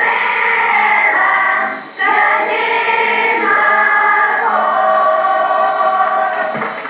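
A caramelles choir singing a Catalan Easter song in harmony, in long held notes, with a short break between phrases about two seconds in.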